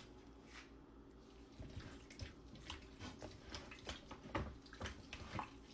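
Faint wet squelching and sloshing of chicken pieces being mixed by a gloved hand in seasoned liquid. After a second or so of quiet it comes as irregular small splashes and squishes.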